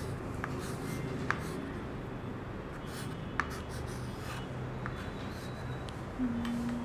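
Chalk writing on a small chalk slate: short scratchy strokes with a few sharp taps of the chalk against the slate. A brief low steady hum comes in near the end.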